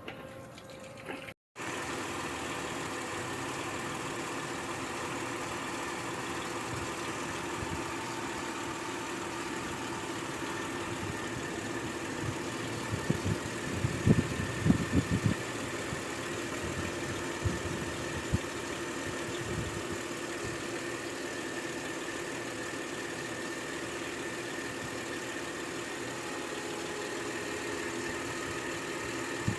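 Mercury Mountaineer 4-litre V6 engine idling steadily, with a short run of sharper knocks about halfway through.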